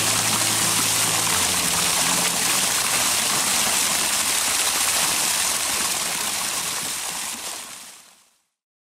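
Rushing, splashing water, a steady even hiss that fades out near the end.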